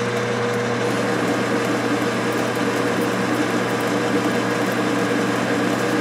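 Enco metal lathe running steadily with the power feed engaged, taking a turning cut on a steel bar at a feed of 7 thousandths per revolution. It makes an even hum with a few held tones from the motor and gearing.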